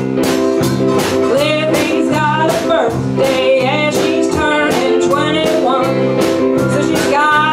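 Live band playing a blues number: drums keeping a steady beat under electric guitar, bass and keyboard chords, with a wavering lead melody line on top.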